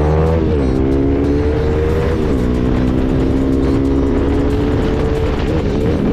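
Motorcycle engine pulling under acceleration, its note climbing, dropping sharply twice as gears are shifted, then rising slowly again.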